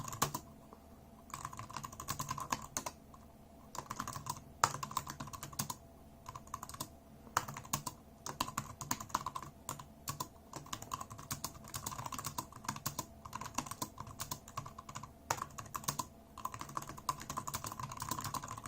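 Typing on an Anker ultra-compact Bluetooth keyboard with scissor-switch keys: fast runs of light key clicks, broken by short pauses, with a few louder single key strikes.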